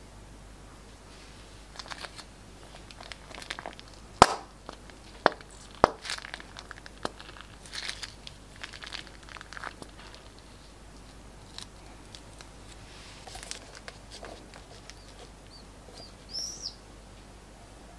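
Plastic piping bag crinkling and crackling as it is squeezed empty and handled, with a few sharp clicks among irregular crackles, most of it in the first half. A short high squeak comes near the end.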